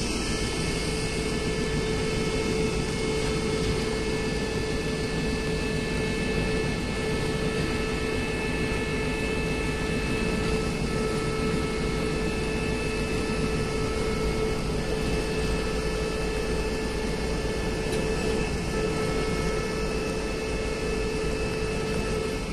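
Double-deck passenger coaches rolling slowly past as the train departs: a steady rumbling noise with a constant hum and a few thin high whines from the coaches, the hum dropping away near the end as the last coaches go by.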